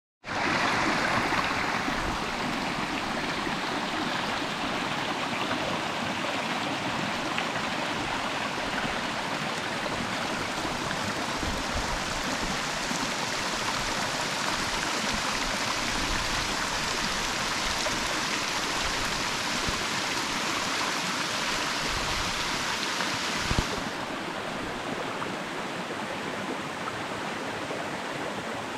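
Waterfall's falling water making a steady, dense rush that starts abruptly. About 24 seconds in, a click is heard and the sound turns a little quieter and less hissy.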